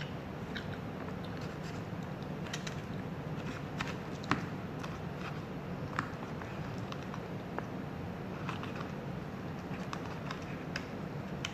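Close-miked eating sounds of a mukbang: chewing with scattered small mouth and food clicks, two of them sharper about four and six seconds in, over a steady low hum.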